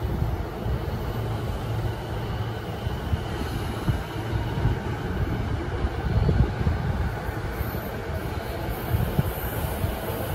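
JR Chuo–Sobu Line E231-series commuter train standing at a station platform, its equipment giving a steady low hum with station noise around it.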